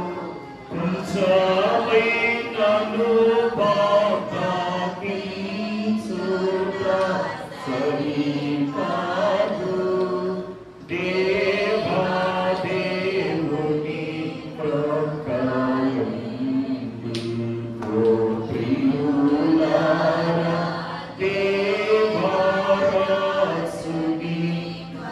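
Voices singing a Telugu Christian hymn (keerthana) in phrases, with brief breaks between lines about a second, eleven seconds and twenty-one seconds in.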